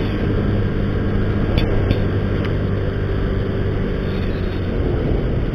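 Motor scooter engine running steadily while riding, with wind and road noise over the microphone; the engine note eases a little about four seconds in.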